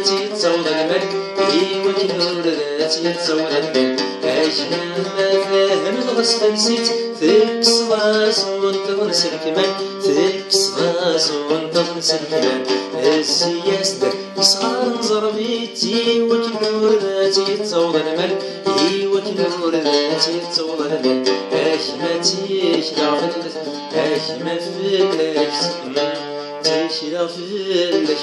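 Oud played with rapid plucked notes while a man sings along.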